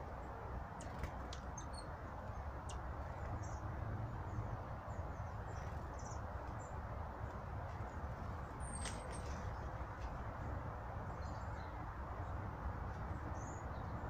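Small birds giving short, high chirps scattered through, with one quick falling call a little after halfway, over a steady low background rumble.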